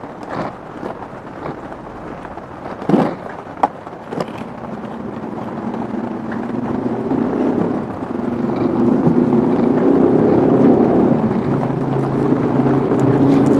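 A motor vehicle's engine drones and grows steadily louder over the second half as it approaches. Before it builds, there are a few sharp knocks, around three and four seconds in.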